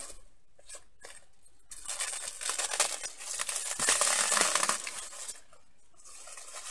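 Plastic wrap crinkling and tearing as it is pulled off a wrapped plush toy, a dense rustling that starts after a quiet second or so and lasts about four seconds.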